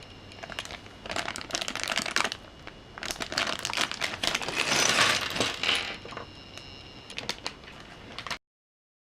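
Small plastic Lego pieces rattling and clicking as they are handled and tipped out, with rustling that swells in the middle and then cuts off suddenly.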